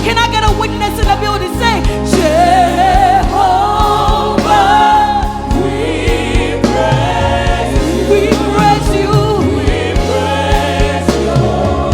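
Live gospel worship music: voices singing together over a band, with a steady low bass and a beat.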